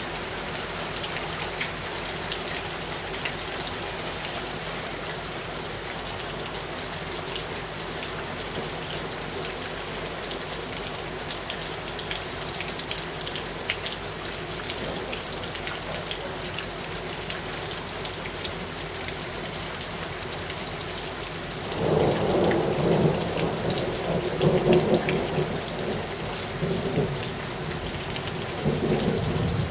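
Steady rain falling. About three-quarters of the way through, thunder breaks in with a loud low rumble lasting several seconds, then swells again near the end.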